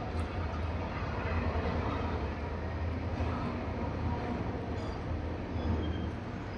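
A steady low mechanical rumble with a continuous deep hum, like a machine running.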